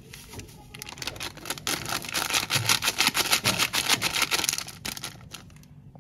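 Jelly powder shaken out of a plastic sachet into a dry aluminium pot: a rapid pattering of fine grains on the metal that builds up about a second and a half in and stops near the end.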